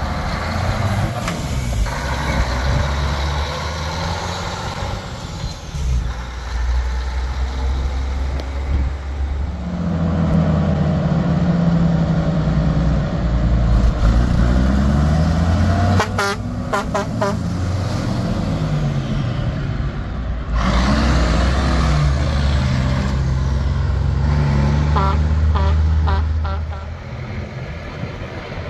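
Classic heavy diesel trucks, a Mack cabover tractor and then a fire engine, pulling out and accelerating. The engine pitch climbs and drops back through gear changes, twice. A few short horn toots come about midway and again near the end.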